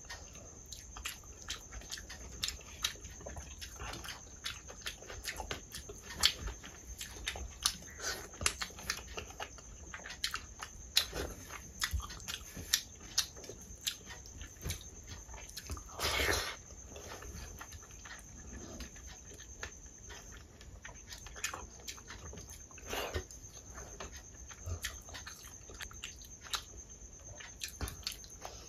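Eating sounds: fingers mashing and mixing rice with dal on a steel plate, and chewing, with many short clicks and smacks throughout. One longer, louder sound about 16 seconds in.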